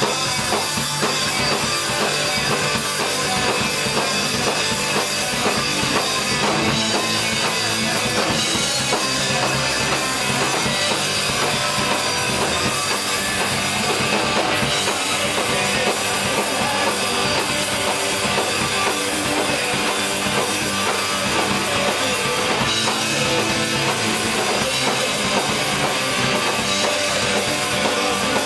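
Punk rock band playing live: distorted electric guitars, bass guitar and drum kit, loud and dense without a break.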